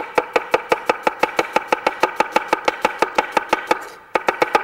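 Fast, even knife strokes finely slicing an onion, each a sharp tap of the J.A. Henckels kitchen knife's blade on the cutting board, about seven a second. A short break near the end, then the tapping resumes.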